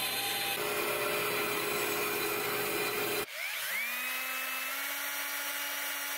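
Band saw running and cutting through a wooden board, a steady noisy whir. About three seconds in, it gives way to a cordless drill spinning up with a rising whine, then running at a steady pitch as it twists a thin wire held in its chuck.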